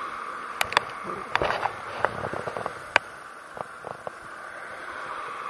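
Fabric of a backpack rubbing and brushing against the camera microphone, giving a few sharp clicks and scrapes over a steady hum.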